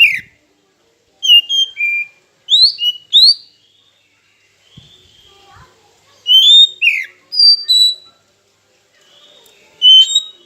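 Oriental magpie-robin (kacer) singing: several loud bursts of clear whistled phrases with quick rising and falling notes, separated by short pauses.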